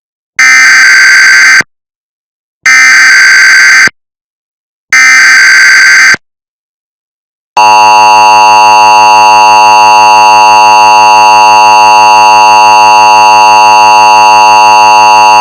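Emergency Alert System tones at full volume: three short bursts of SAME header data, then about eight seconds of the steady two-tone EAS attention signal.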